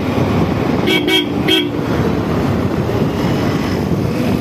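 JCB 3DX backhoe loader's diesel engine running steadily as it drives along the road, with a vehicle horn tooting three short times about a second in.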